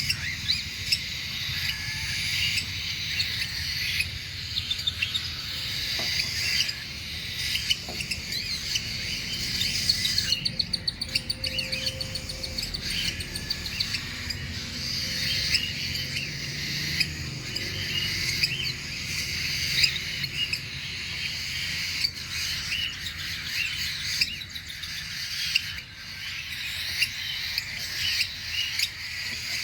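A flock of cockatiels chirping, with many short, overlapping calls, over a steady low rumble.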